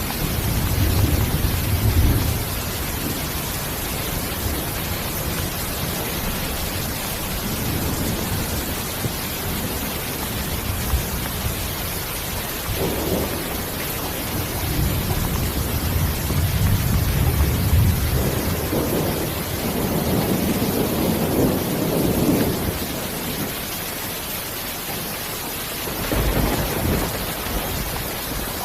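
Steady rain, an even hiss, with low rolls of distant thunder swelling and fading several times: at the start, twice in the middle and once near the end.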